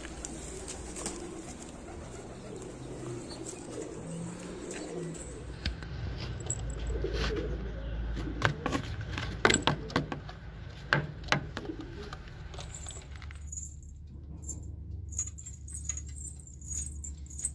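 Pakistani and Indian high-flyer pigeons cooing in a loft. Through the second half comes a run of sharp clicks and rattles.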